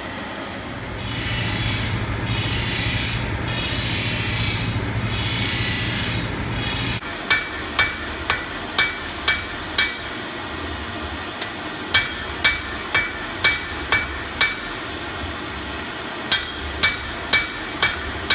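A hand hammer forging the red-hot end of a steel rod on an anvil: about two blows a second in three short runs, each blow ringing briefly. Before the hammering starts there are about six seconds of rough, pulsing hissing.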